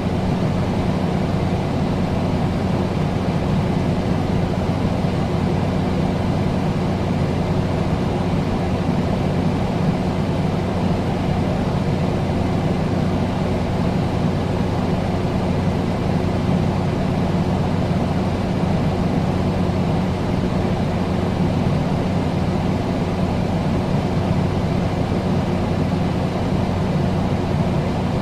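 Air conditioner running steadily: an even rushing of air with a low motor hum.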